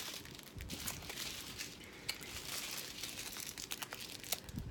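Small plastic baggies of resin diamond-painting drills crinkling and rustling as they are handled and sorted, with many small irregular clicks and a sharp click at the start.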